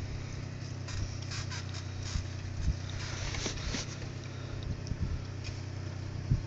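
Truck engine idling steadily, with scattered light clicks and scrapes over it.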